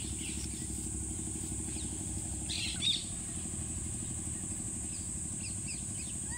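Outdoor ambience: a steady high-pitched drone over a low steady rumble, with short high descending chirps. The loudest cluster of chirps comes about two and a half seconds in, and fainter ones come near the end.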